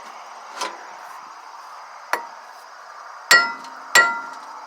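Hammer striking a car's rear brake rotor to knock it off the hub: two lighter knocks, then two loud blows near the end, each ringing like struck metal.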